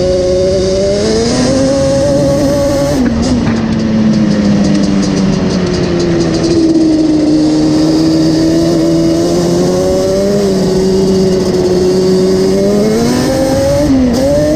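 Yamaha Banshee 350 ATV's twin-cylinder two-stroke engine running under way: it climbs in pitch, drops sharply about three seconds in as it shifts up, holds fairly steady, then climbs again near the end with a quick dip and recovery.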